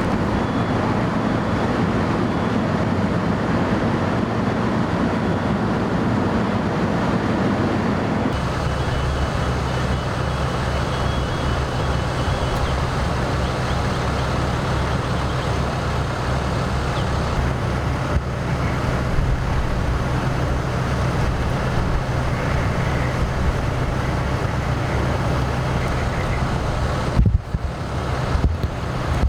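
Steady rumble of idling vehicle engines with wind noise on the microphone. The sound changes abruptly about eight seconds in, after which a steady low hum holds.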